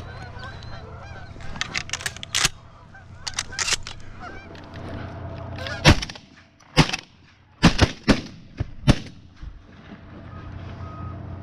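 Goose honking as a flock comes in over the decoys, then a volley of about five shotgun blasts fired over roughly three seconds, starting about six seconds in.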